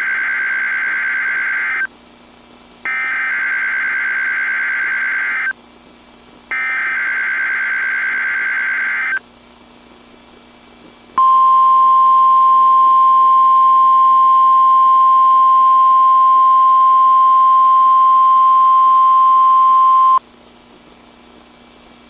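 NOAA Weather Radio alert signal from station KEC76. First come three bursts of screechy SAME digital header tones, each about two and a half seconds long with a second's gap between them. About two seconds after the last burst, the steady 1050 Hz warning alarm tone is held for about nine seconds and then cuts off. It is the Required Weekly Test of the warning alarm system.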